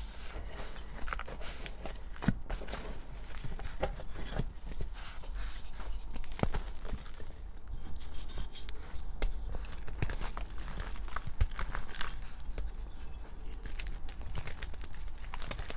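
Reformed gym chalk discs being handled in a bowl of loose powdered chalk: irregular soft knocks, scrapes and powdery crumbling as the discs are stacked, pressed together and broken apart by hand.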